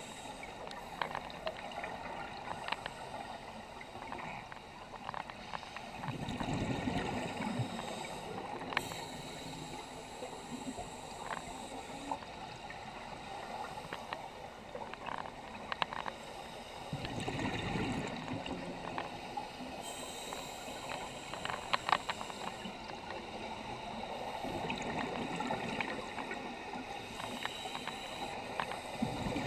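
Underwater sound of scuba divers breathing through regulators: exhaled bubbles come as a low bubbling rush every several seconds, over a steady hiss with scattered small clicks.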